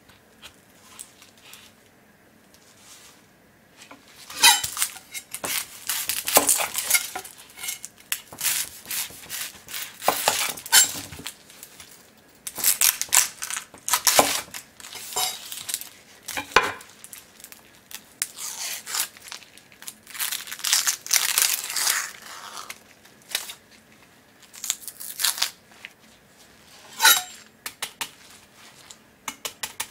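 A chef's knife cutting through an onion and its dry, papery skin onto an end-grain wooden cutting board, with the crackle of the skin being cracked and peeled away. The cuts and crackles come in irregular bursts with pauses, starting about four seconds in, and there are a few sharp clicks of the blade meeting the board.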